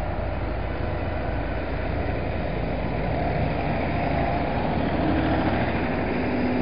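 Diesel tractor engines running as tractors drive past one after another, a steady low rumble. A higher engine hum comes in about five seconds in.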